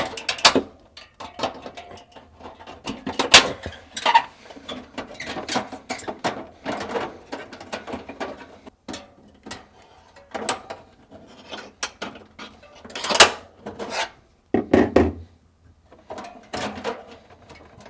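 Handling noise from a freezer defrost heater being worked out around the evaporator coil: irregular clicks, knocks and rubbing of the heater and retaining clips against the coil and tray, with a few sharper knocks scattered throughout.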